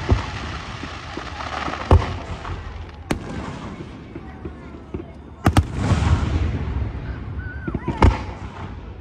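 Aerial fireworks shells bursting in a series of sharp bangs: one near the start, one about two seconds in, one about three seconds in, a quick pair about five and a half seconds in, and one near the end. Crackling and hissing follow the bursts.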